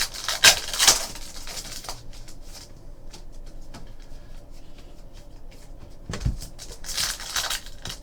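Trading cards being handled and slid against one another, with two short spells of rustling and a soft knock just after six seconds.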